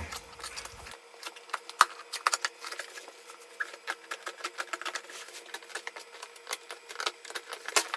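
Shipping packaging being opened and handled, with irregular crackles, clicks and rustles of cardboard and plastic wrap, over a faint steady hum.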